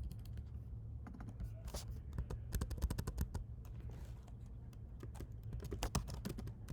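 Typing on a computer keyboard: irregular bursts of keystroke clicks, over a steady low hum.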